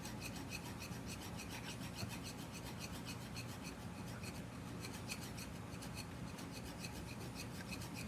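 Hand file rasping across the flat face of a Jeep brake caliper in short, even back-and-forth strokes. The metal is being filed down to find and flatten the low spot where the caliper was leaking.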